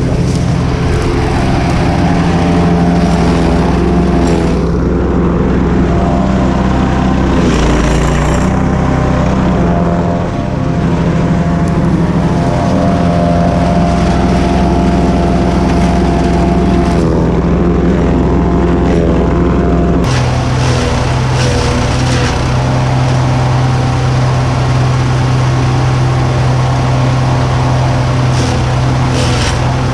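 Cobra wood chipper's engine running steadily under load. Its pitch dips briefly about eight seconds in, and its tone changes suddenly about twenty seconds in.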